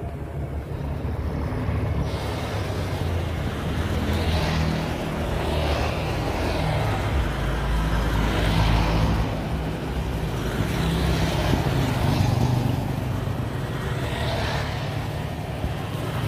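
Road traffic: vehicle engines running and cars passing, with a steady low rumble and repeated swells as vehicles go by.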